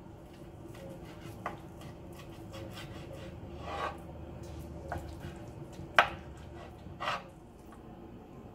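Metal spoon and tongs scraping and clacking against a cutting board as tender braised beef cheek is pulled apart. There are a few short scrapes and sharp clacks, the loudest about six seconds in, over a low steady hum.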